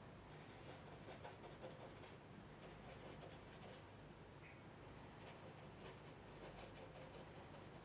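Faint scratching of a white pencil tip working over paper in short, irregular strokes, over a low room hum.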